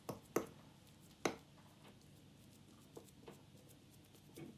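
A metal fork spreading mashed potato in a glass baking dish: faint scraping with about six short clicks and taps, the loudest a little after a second in.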